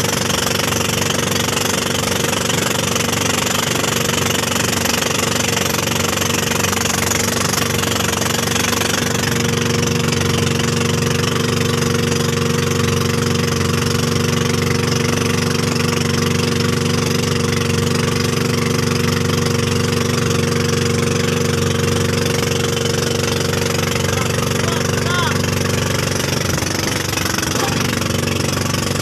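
Engine of a motorized outrigger boat running steadily under way at a constant speed, over the rush of water along the hull.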